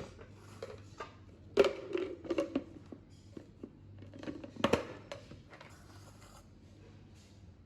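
Kitchen food-prep handling sounds: a few separate knocks and clatters of utensils and containers, the loudest about a second and a half in and again near five seconds, over a faint steady hum.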